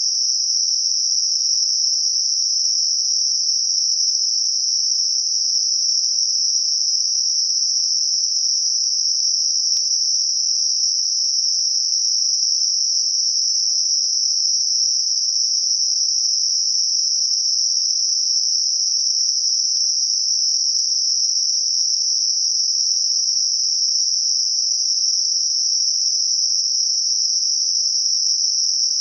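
Synthetic Gaussian narrow-band noise centred on 5.5 kHz, generated as a tinnitus masker: a steady, even, high-pitched hiss that never changes.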